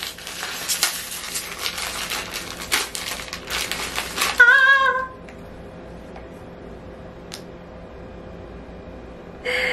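Foil blind-box wrapper crinkling and tearing in the hands, a dense run of crackles for about four seconds, followed by a brief high-pitched vocal exclamation, then quiet room tone.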